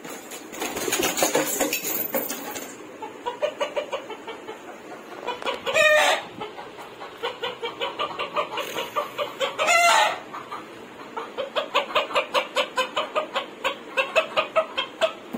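Chickens clucking in quick runs of short, evenly spaced pulses, with two loud, short calls about six and ten seconds in.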